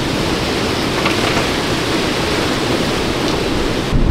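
Steady rushing noise of tropical-storm wind and rain. Near the end, gusts start buffeting the microphone.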